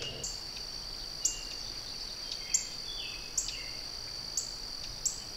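Steady high-pitched insect chorus, with short chirps and a few brief bird calls at roughly one-second intervals.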